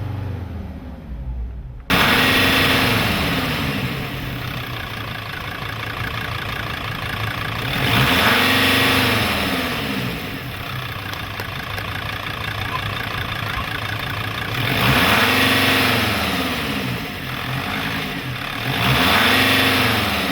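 Sprinter 2.7-litre CDI five-cylinder turbo diesel running, then revved up and back down four times, each rev lasting about two seconds. The owner puts the engine's loss of power down to a faulty turbo actuator, with an underboost code (P0299).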